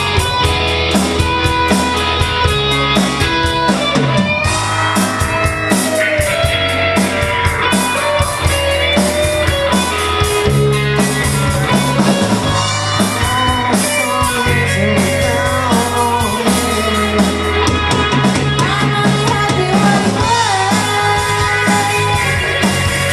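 Live rock band playing with electric guitar, bass and drum kit, the drums keeping a steady beat under guitar lines that bend in pitch near the end.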